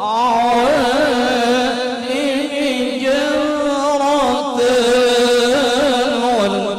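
Background music: an Arabic devotional song in praise of the Prophet, sung in long, wavering held notes.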